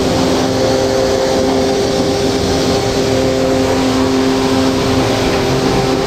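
Pressure washer running steadily: a constant hum from the machine under the hiss of the water jet spraying the motorcycle.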